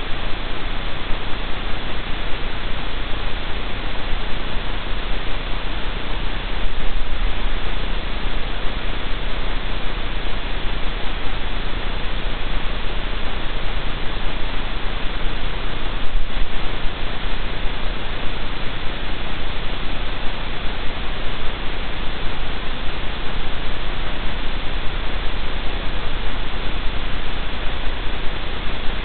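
Steady static hiss from a livestream camera's audio feed, with a low hum underneath. It swells slightly twice, about a quarter and about halfway through.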